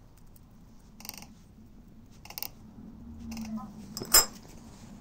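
Small handling noises while a microscope slide is prepared with leaf pieces: a few brief rustles and light clicks, then one sharp click about four seconds in, the loudest sound.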